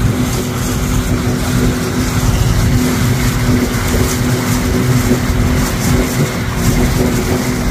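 A small fishing boat's motor running at a steady speed with the boat under way: an even hum over a rough rush of wind and water.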